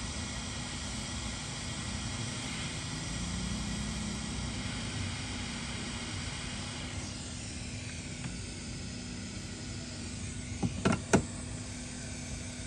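Hot air rework gun blowing steadily over a laptop GPU chip to melt its solder and lift it off the board: an even hiss with a low steady hum under it. A few sharp clicks near the end.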